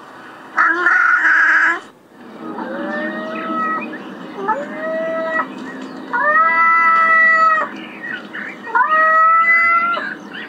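A cat yowling: a loud call about half a second in, then four long drawn-out meows, each a second or two long, rising at the start and then held.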